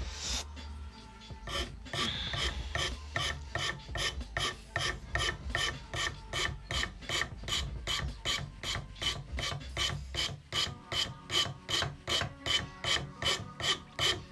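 Flat hand file rasping back and forth over a tobacco pipe stem in a steady run of strokes, about three a second, growing louder about ten seconds in.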